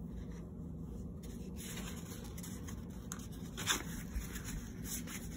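Brown paper crinkling and rustling as a husky puppy paws and tugs at it in a person's hand, with a few sharper crunches, the loudest about three and a half seconds in.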